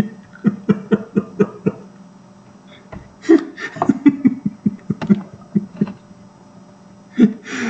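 A person laughing in two bouts of quick, rhythmic ha-ha pulses, with a short burst of laughter near the end.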